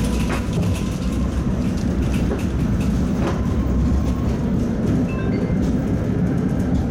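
Tatra T3 tram running along the rails, heard from inside the car: a steady low rumble of wheels and running gear with scattered clicks and rattles.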